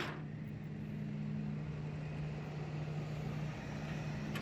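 A vehicle engine running steadily, with a constant low hum over a rumbling noise.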